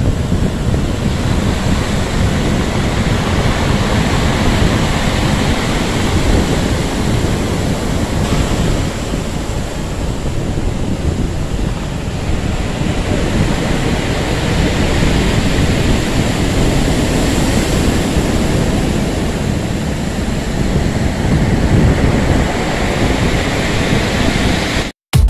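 Rough surf breaking among rocks and washing up a pebble beach: a continuous loud rush with a deep rumble that swells and eases with each set of waves, cutting off abruptly just before the end.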